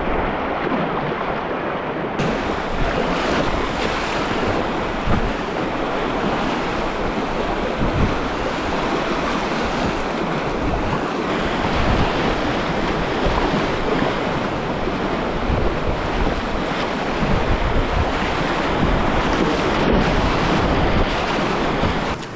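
Whitewater rapids rushing and splashing around the bow of a kayak, a loud, steady wash of water with wind buffeting on the camera microphone.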